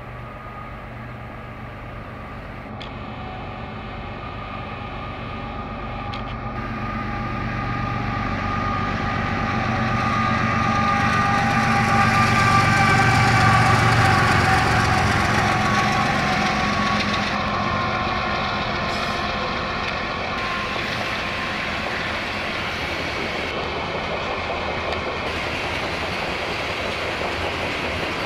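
Diesel locomotives hauling a loaded coal train run past with a deep engine hum. The hum grows louder to a peak as the lead engines go by about halfway through, then settles into the steady rumble of loaded coal hoppers rolling on the rails.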